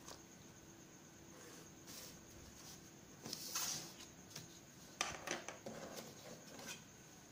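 Quiet handling of a sheet of paper and plastic drawing tools on a desk: a short rustling scrape about halfway through, then a few light clicks and taps.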